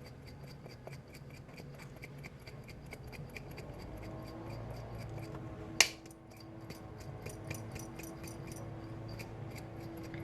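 Quick, even clicking of a small kitchen utensil, about four to five clicks a second, with one sharp louder click about six seconds in. A faint steady hum comes in partway through.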